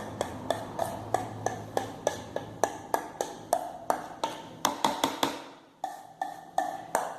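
A spoon clicking and scraping against a bowl and a loaf pan as chocolate bread dough is scooped out: a run of light, sharp clicks about three a second, pausing briefly near the end.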